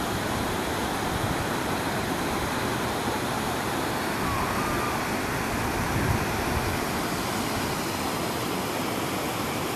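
River rapids rushing over rocks: a steady, even rush of white water.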